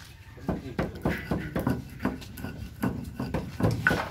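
Stone pestle grinding in a stone mortar (cobek and ulekan), crushing dry grains and coarse salt: a steady run of short scraping knocks, about three a second.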